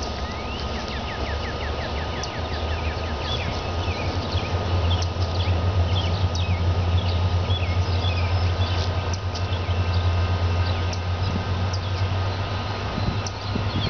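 Low, steady rumble of the diesel locomotives on an approaching freight train, growing louder about four seconds in, while birds chirp and sing.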